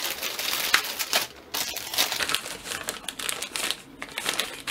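Green plastic postal mailer crinkling and rustling as it is handled and opened by hand, with a couple of brief pauses.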